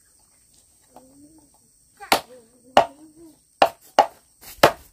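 Hammer striking wood: five sharp knocks at uneven spacing, starting about two seconds in.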